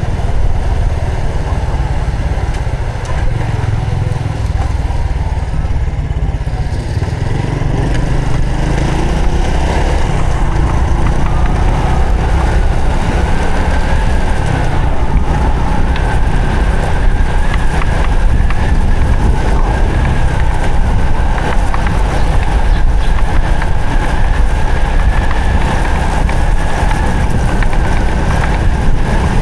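Honda Supra X 125 FI motorcycle riding, its 125 cc single-cylinder four-stroke engine running under way with heavy wind noise on the microphone. The engine picks up speed about a third of the way in, then holds a steady cruise.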